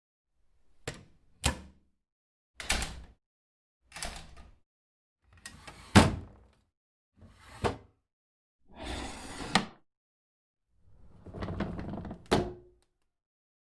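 A run of separate door and window sound effects with short silences between: sharp latch clicks and knocks, some drawn out into a short opening or closing sweep. The loudest click comes about six seconds in.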